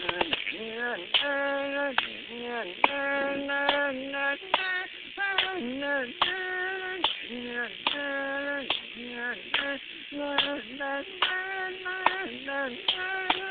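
A man carrying a melody without words through his cupped hands, in sustained notes that slide up and down between pitches, with sharp clicks or claps scattered between them.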